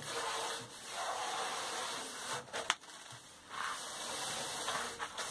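Sawdust being brushed by hand across a metal saw table: two long brushing stretches with a pair of light knocks between them about two and a half seconds in. The saw itself is not running.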